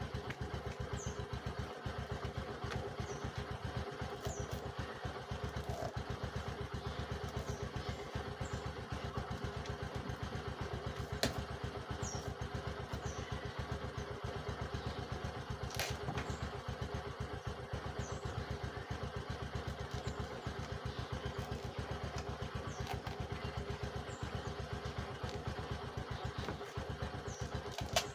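A small engine running at a steady, rapid chug, with a couple of sharp knocks near the middle.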